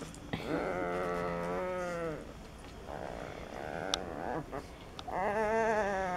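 Two-week-old Alapaha Blue Blood Bulldog puppy whining: two long, wavering cries, the first near the start and the second about five seconds in.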